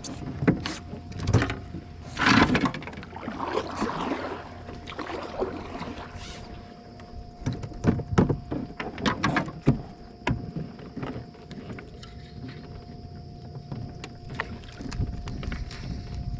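Irregular knocks and clunks of gear against a fishing kayak's hull, loudest about two seconds in and again in a run of knocks midway, with a faint steady tone underneath.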